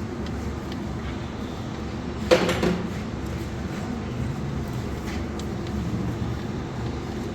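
Steady low mechanical hum, with one sharp knock about two and a half seconds in.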